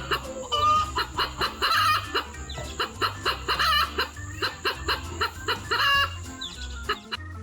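Short, clucking bird calls repeating over background music with a steady beat.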